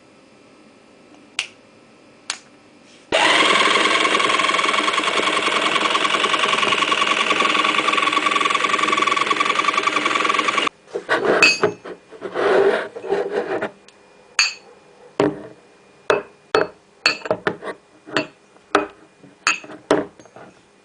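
A few clicks, then a loud steady whirring noise with a hum, like a small motor running, that starts and cuts off abruptly after about seven seconds, followed by irregular knocks and scrapes of household objects.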